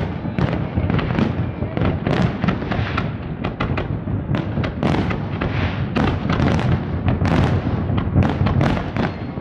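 Fireworks display: a dense, continuous barrage of shell bursts, several bangs a second overlapping, with hissing between them.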